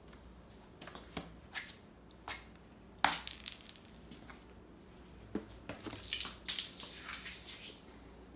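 Scattered clicks, taps and scrapes on a hard tile floor as a cat runs and plays, with a sharp knock about three seconds in and a burst of crunchy scraping around six to seven seconds in.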